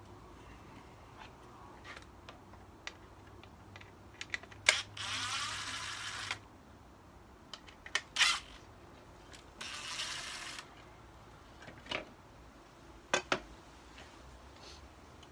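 Cordless drill-driver running in two short bursts, the first about a second and a half, the second under a second, working the screws on a Jeep Wrangler's third brake light and its bracket. Sharp clicks and knocks come in between, the loudest louder than the drill.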